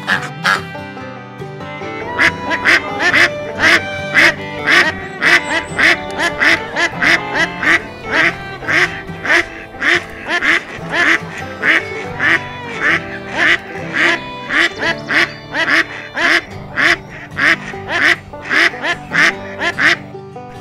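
Background music with a steady beat of about two strokes a second, with ducks quacking over it.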